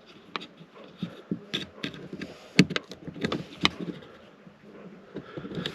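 Irregular light clicks and knocks of hands handling car interior parts, speaker and wiring; the sharpest come about two and a half and three and a half seconds in.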